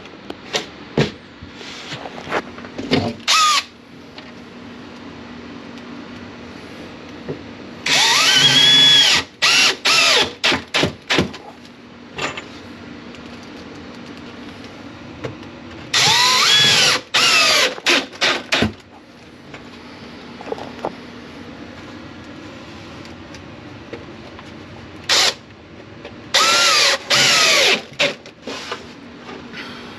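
Power drill driving screws in three runs, each a long pull of the trigger with the motor pitch rising and falling, then a few short blips to seat the screw. A few clicks and knocks come in the first seconds.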